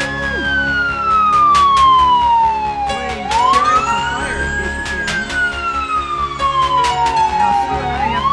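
Siren wailing in slow cycles: each one rises quickly, then glides down over about three seconds before rising again, twice here. Sharp clicks or knocks sound over it.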